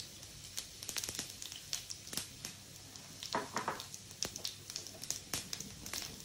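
Cumin seeds and chana dal frying in hot oil for a tadka, a scattered run of small crackling pops.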